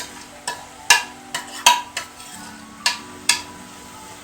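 A metal spoon knocking and clinking against a cooking pan, about eight sharp strikes at uneven intervals, as grated coconut is added and stirred into chana dal cooking in sugar syrup.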